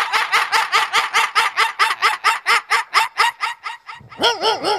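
A man imitating yapping puppies with his voice into a microphone: a fast run of short, high yelps, about six a second. After a brief break near the end, the yelps come again, each rising and falling in pitch.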